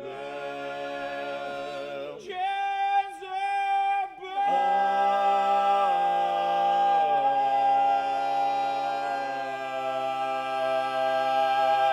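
Barbershop quartet singing a cappella in four-part close harmony, finishing the song on a long held closing chord: a high note sustained steadily while the lower voices shift beneath it, the chord cut off together near the end.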